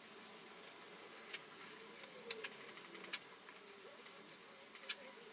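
A glue brush working adhesive onto a veneered wooden lid: faint brushing with a few light clicks, the sharpest about two seconds in. Under it is a faint buzz that wanders up and down in pitch.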